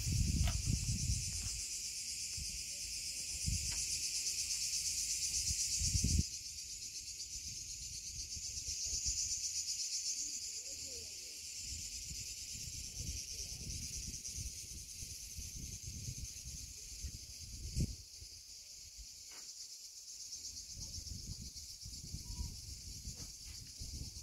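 Insects chirring in a steady, high, even drone, with irregular low rumbles underneath. The drone drops in level about six seconds in.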